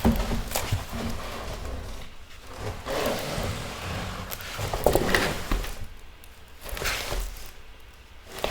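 Rustling and light handling noises of a diamond painting canvas being moved about, swelling and fading several times with a few soft knocks.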